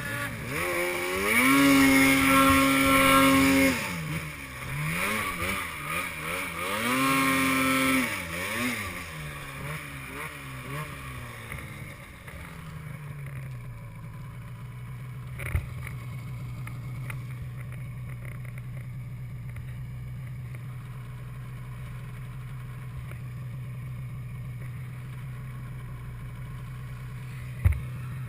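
Arctic Cat M8 snowmobile's 800 cc two-stroke twin revving hard twice, with the throttle blipped quickly up and down in between. It then drops back to a steady idle about halfway through, with a sharp knock in the middle and another near the end.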